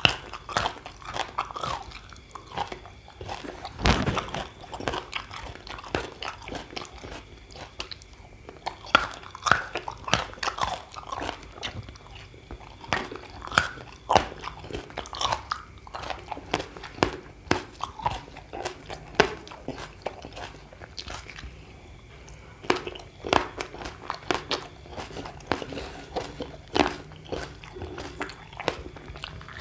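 A person biting and chewing crunchy food close to the microphone, from a meal of raw vegetables and crackers: sharp, irregular crunches every second or so between quieter, wet chewing.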